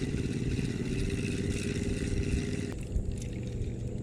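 KastKing Valiant Eagle baitcasting reel being cranked to retrieve line: a steady whir of the reel's gears that stops suddenly a little under three seconds in.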